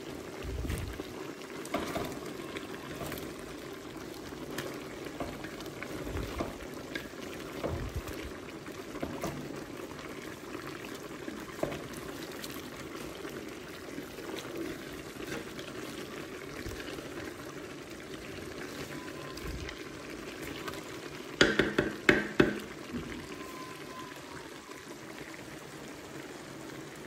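Wooden spoon stirring a large aluminium pot of meat simmering in broth: a steady bubbling hiss with scattered small knocks of the spoon. A brief, louder clatter comes about 21 seconds in.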